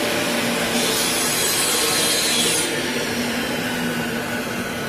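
Table saw running as it rips the tongue off a piece of beadboard. The cut through the wood adds a dense hiss from about a second in to nearly three seconds, then the blade spins on freely.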